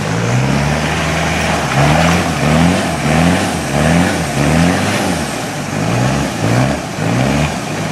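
Toyota Hilux engine revving under load, its pitch rising and dropping back over and over, about twice a second, with a steady rush of noise behind it.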